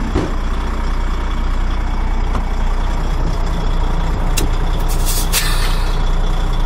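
Truck tractor's diesel engine idling steadily, with a click and then a short hiss of compressed air about five seconds in as the trailer's air line coupling is disconnected.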